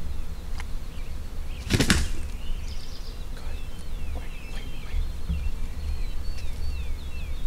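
A wild turkey gobbler gives a short, sharp burst of wing flapping about two seconds in. Small birds chirp throughout.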